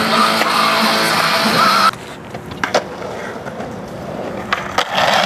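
Background music with guitar that cuts off abruptly about two seconds in. It gives way to a skateboard on concrete: wheels rolling, with a few sharp clacks of the board and a louder rolling rush near the end.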